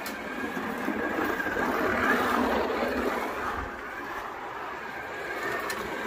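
Electric slot car running on a plastic slot-car track: a thin motor whine over the rattle of wheels and guide in the slot. It grows louder about two seconds in as the car passes close, then fades.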